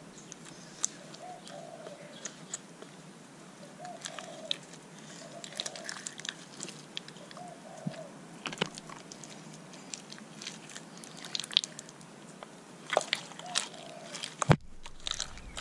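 Hands squishing and stretching a large glitter slime packed with beads and foam balls, making irregular sticky clicks, crackles and pops. A moment of silence breaks it near the end.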